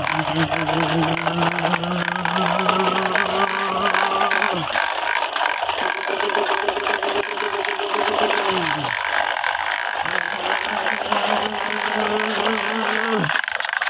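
Plastic toy dump truck rolling on its hard plastic wheels over gritty concrete, a continuous rapid clicking rattle. Under it a steady low hum drops in pitch at about four-second intervals, three times.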